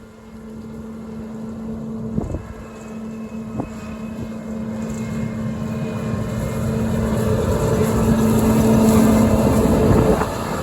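Combine harvester's engine running at a steady speed with a steady hum, growing steadily louder as the machine approaches, then dropping off suddenly near the end.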